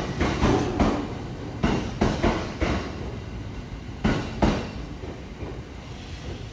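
JR 209 series electric train pulling out past the platform over a steady rumble, its wheels clacking over rail joints in pairs. The clacks fade as the last car draws away about four and a half seconds in.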